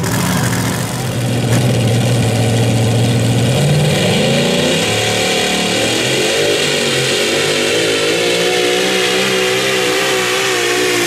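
Super modified four-wheel-drive pulling trucks' engines running at high revs. The first note holds steady, then about four seconds in it gives way to a supercharged V8 pulling the sled, its pitch wavering and slowly rising.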